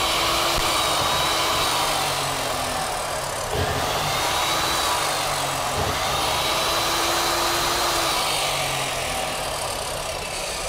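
Huspanda HCD3551 355 mm abrasive cut-off saw running free with no load, its brushed electric motor and cutting disc whining, the pitch rising and falling a few times.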